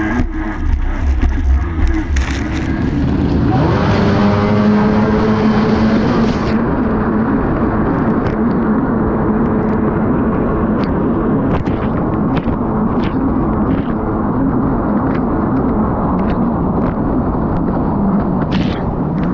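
Racing snowmobile engine running hard: it revs up about three or four seconds in, then holds a high, steady pitch at speed.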